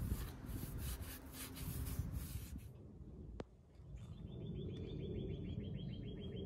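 A hand rubbing and scraping over a boat's fibreglass hull edge, a series of scratchy strokes. Later a high, fast chirping trill of about six chirps a second carries on through the rest.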